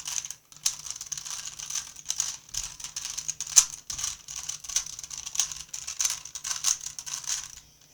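Rubik's brand 3x3 Rubik's Cube being turned fast in a speedsolve: a dense, uneven run of plastic clicks and clacks as the layers snap round, with a short break about half a second in.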